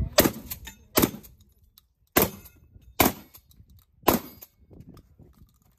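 Shotgun fired five times in fairly quick succession, roughly a second apart, each shot sharp with a short ringing tail.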